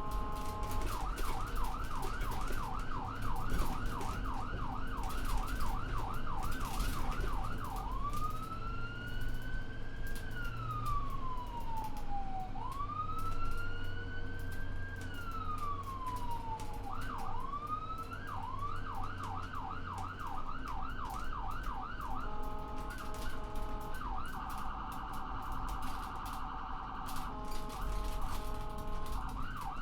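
Ambulance electronic siren switching through its tones: a fast yelp of about three sweeps a second, then two slow wails rising and falling over several seconds each, the yelp again, then stepped two-tone hi-lo bursts with a rapid warble in the middle, ending back on the yelp. A steady low rumble of the moving vehicle runs underneath.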